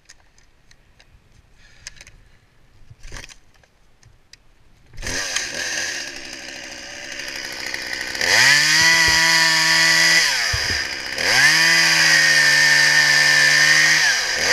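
Chainsaw starting about five seconds in and idling. It is then run up to full throttle twice, for about two seconds each, dropping back to idle between and again near the end. Before it starts there are faint clicks and knocks of handling.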